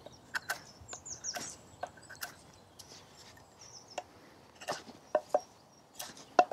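Thin stainless knife carving a very hard, knotty piece of dry blackthorn: irregular sharp clicks and short scrapes as the blade bites and shaves the tough wood. The loudest cuts come near the end.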